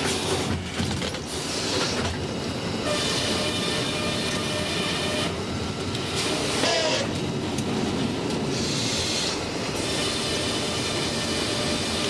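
Sawmill head rig running: the headsaw cutting a southern yellow pine log as the log carriage travels on its track. The machinery makes a steady, loud clatter, and a higher hiss rises twice, a couple of seconds in and again near the end.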